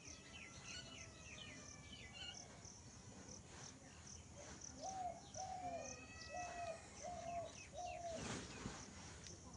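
Birds calling, faintly: scattered higher chirps, and from about five seconds in a run of five short, low hooting notes. Insects trill steadily underneath, and a brief rush of noise comes near the end.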